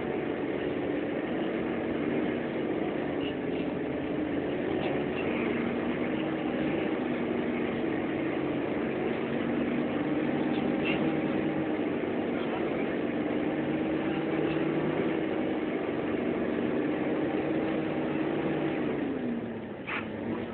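Bus engine running steadily, heard from inside the cabin while driving, its pitch and loudness dropping near the end.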